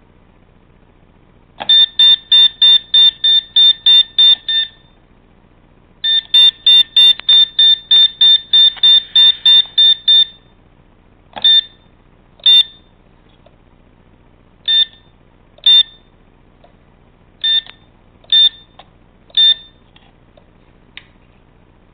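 Short, high-pitched electronic beeps, all alike. First a rapid run of about nine at roughly three a second, then a longer run of about fourteen, then single beeps about a second apart.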